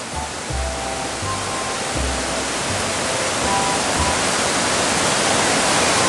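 Waterfall rushing steadily, water pouring over rocks, growing slightly louder toward the end. Soft background music runs under it, with low bass notes every second or so and faint held tones.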